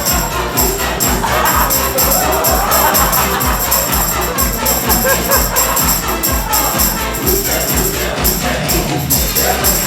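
Upbeat music with a steady, fast beat and a tambourine jingling along in rhythm, with a melody that sounds sung.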